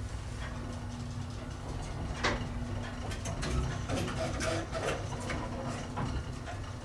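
1954 Otis elevator in operation: a steady low mechanical hum with a run of sharp clicks and knocks from about two seconds in to near the end.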